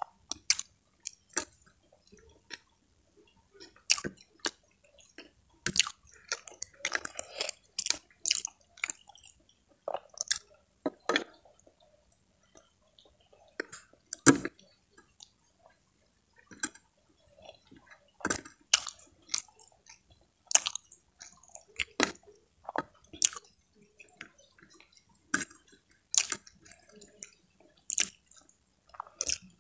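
A person chewing with the mouth open, making irregular sharp wet smacks and clicks, several a second in bursts, while eating rice and water spinach with her fingers.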